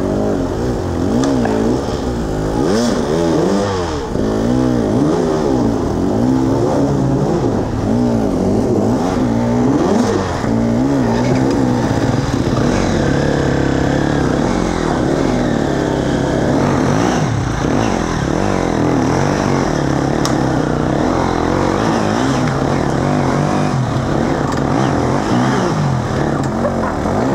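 Dirt bike engines revving on a steep, rocky climb, their pitch rising and falling unevenly with the throttle as the riders work their way up.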